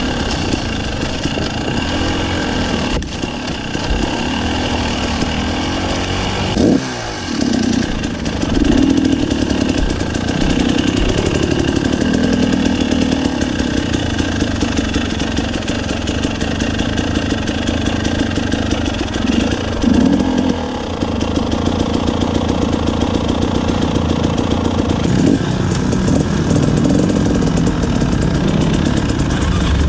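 KTM 300 two-stroke enduro motorcycle engine running under way, its revs rising and falling as the throttle is worked. About seven seconds in the revs drop sharply and pick up again.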